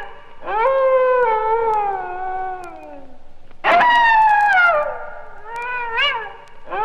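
Animal howls from a Halloween sound-effects record: two long drawn-out calls, each rising quickly and then sliding slowly down in pitch. The second starts suddenly and loud about halfway through, and a short rising-and-falling cry comes near the end.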